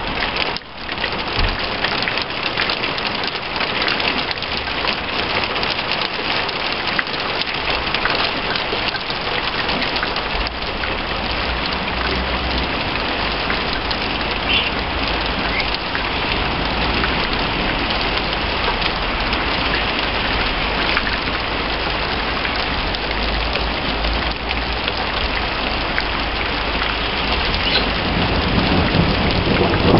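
Heavy rain falling steadily, an even downpour pattering on surfaces. Near the end a low rumble of thunder begins to build.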